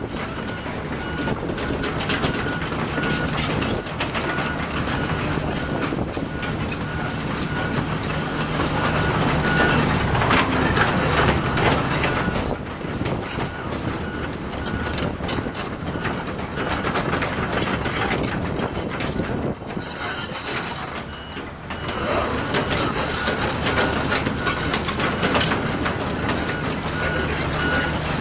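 Volvo EC210C hydraulic excavator working: the diesel engine runs steadily and swells under load as the hydraulics work, over dense metal clanking and rattling. A faint high beep repeats at even intervals.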